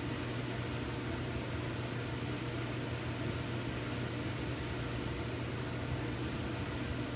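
Steady low hum, with two short high-pitched hisses about three and four and a half seconds in: a soldering iron sizzling as it meets acid-fluxed galvanized sheet steel.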